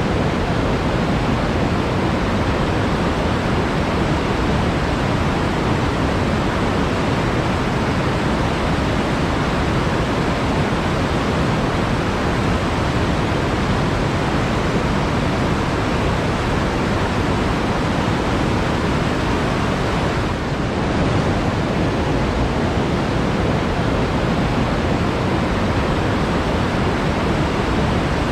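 Flowing water rushing steadily in an even wash, with a brief slight dip about twenty seconds in.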